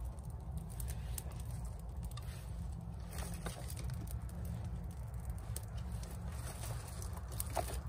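Scattered light snaps and crackles of small dry birch twigs, thickest about three seconds in and again near the end, over a low steady rumble.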